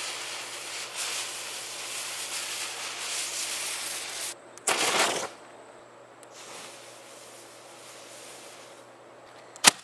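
Green visco fireworks fuse burning down with a steady hiss for about four seconds. Then blackmatch fuse flares with a short loud rush and burns on with a fainter hiss, and a single sharp click comes just before the end.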